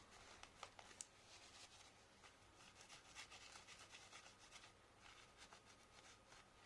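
Faint rubbing and light scratching, with a few small clicks about half a second and a second in, as old thermal paste is wiped off the laptop's processor and heatsink.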